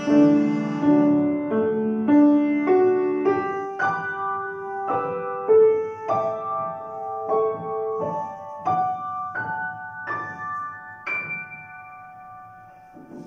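Violin and grand piano closing a piece. The violin's held notes drop out within the first couple of seconds, then the piano plays a slow rising line of notes, about one every half second or so, up to a final high note that is held and dies away.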